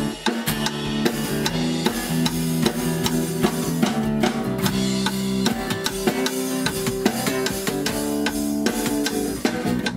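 A band playing a song: guitar, bass guitar and drum kit with a steady beat.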